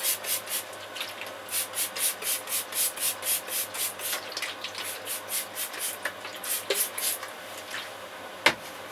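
Rapid back-and-forth rubbing on leather-hard clay, about four strokes a second, as water is worked onto a drying section of thrown pot. The strokes slow and fade over the second half, and a single sharp knock comes near the end.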